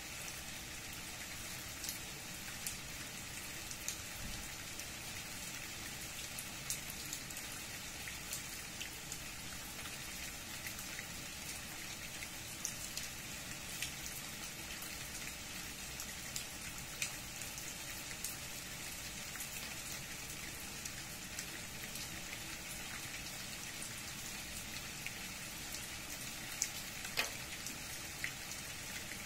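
Steady rain: an even hiss with scattered sharp ticks of single drops landing close by, a few louder ones near the end.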